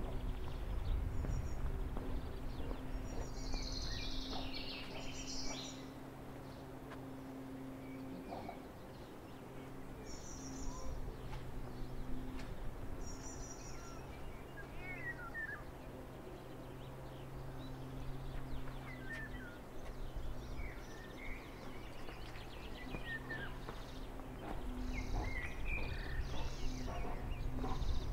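Birds chirping and calling on and off over a steady low hum, with the calls busiest a few seconds in and again near the end.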